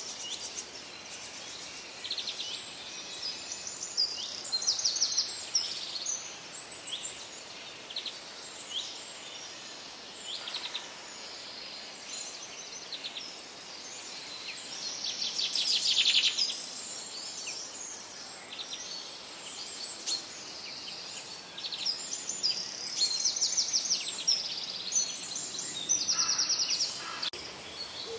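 Small birds chirping and singing: many short high calls and quick rattling trills overlapping, loudest about halfway through.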